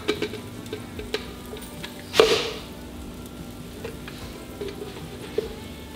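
Kitchen handling sounds as cooked pork pieces are moved from a skillet into a blender cup: a sharp clunk about two seconds in and a few light clicks, over a faint steady hiss.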